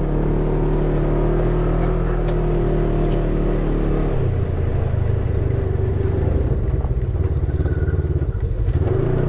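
Polaris RZR side-by-side's twin-cylinder engine running under way on a gravel trail, a steady engine note that about four seconds in drops lower and turns rougher as the machine slows, picking up again near the end.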